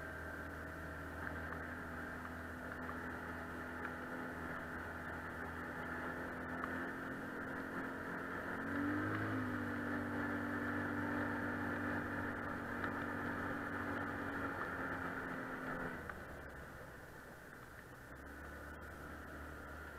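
ATV engine running under way. Its note rises about nine seconds in and holds there, then drops back and gets quieter around sixteen seconds as the throttle eases.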